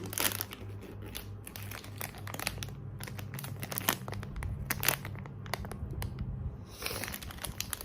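Packaging crinkling and rustling as a blind box is unwrapped, with many irregular crackles and a denser rustle near the end, over a low steady hum.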